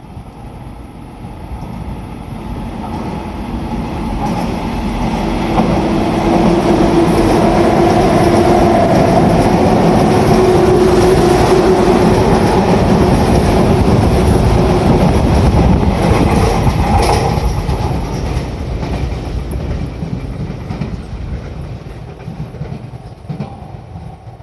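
Sotetsu electric commuter train passing through the station at speed without stopping. The noise builds over several seconds, then runs loud and steady with a humming tone for about ten seconds as the cars go by. It fades as the train moves away, with a brief sharp clack partway through the fade.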